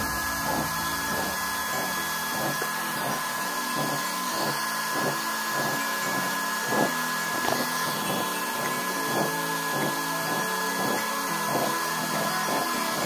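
Small electric blower running steadily, forcing air into a homemade waste oil stove burner, giving a steady rushing noise with a fixed whine. Background music with a steady beat plays over it.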